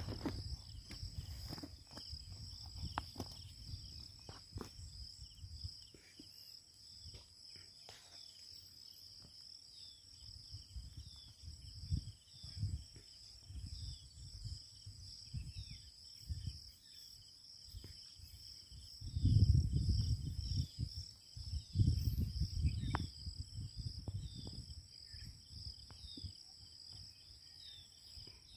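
Insects chirping in a steady, high-pitched trill, with irregular low rumbles coming and going, loudest about two-thirds of the way through.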